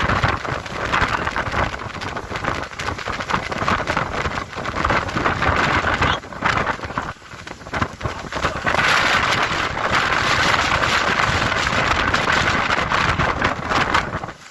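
Strong storm wind gusting against the microphone over wind-driven waves on a lake: a loud, rough rush of noise that swells and eases, dropping briefly about seven seconds in.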